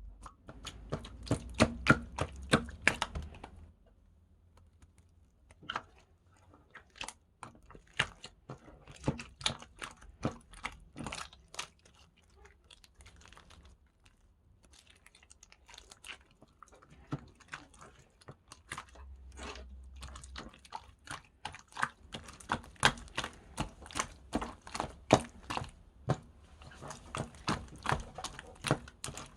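Slime being squeezed and pressed by hand, making irregular sharp clicks and pops in quick runs, with a few short quiet pauses.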